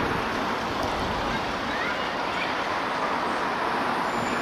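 Steady city traffic noise: a continuous broad rush of passing road vehicles with no single engine standing out.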